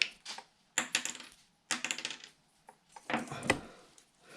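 Wire cutters clicking and clinking in four short clusters about a second apart as they snip small gray sense wires short.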